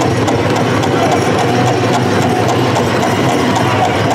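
Loud, continuous din of a crowded indoor arena, with a quick, even beat of clicks running through it.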